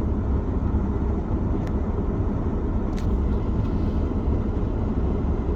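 Car engine idling steadily, with a faint short click about three seconds in.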